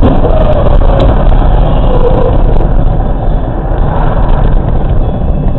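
Loud, steady road and engine noise of a moving car.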